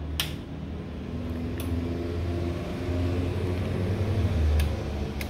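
Pioneer SA-1000 amplifier's rotary switches clicking into their detents as the knobs are turned: four sharp clicks, one right at the start, one about a second and a half in, and two close together near the end, over a steady low rumble.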